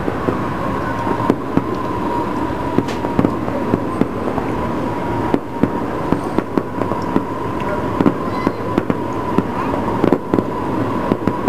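Distant aerial fireworks display: irregular bangs and pops, sometimes several in quick succession, over a steady rumble, with a steady high tone running underneath.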